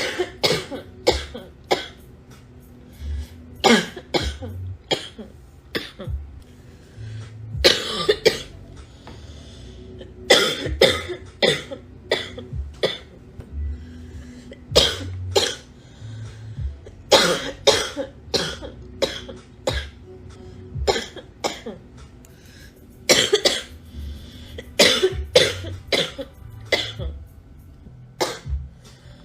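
A girl with a cold coughing hard, in short fits of several harsh coughs a few seconds apart.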